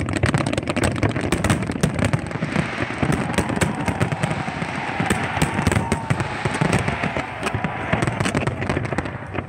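Fireworks display going off in quick succession: a dense, unbroken run of sharp bangs and crackles, several a second.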